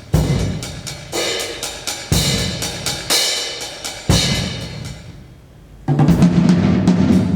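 Percussion ensemble playing drums live: strong accented hits about once a second, each ringing and dying away under quicker strokes, then a brief lull before a dense, loud passage starts about six seconds in.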